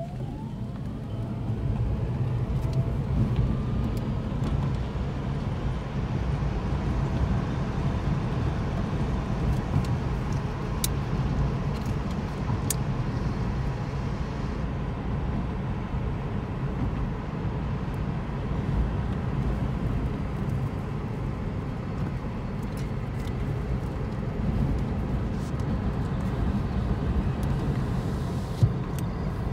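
Cabin noise inside a CODA electric sedan driving on track: a faint whine rises in pitch as the car pulls away, then a steady low rumble of tyres, road and wind at speed. There is a single sharp knock near the end.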